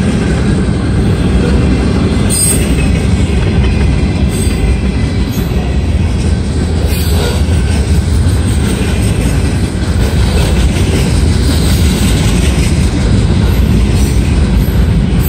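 Freight train cars rolling past close by: a steady, heavy rumble of steel wheels on rail, with faint wheel squeal about two thirds of the way through.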